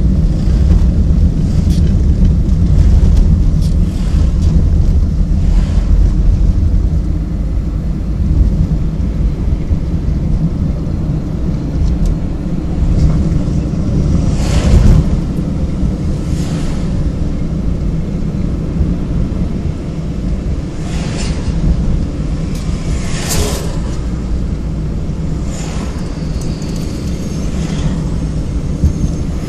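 Steady low road and engine rumble heard from inside a moving car, with a few short, sharp noises about halfway through and again later.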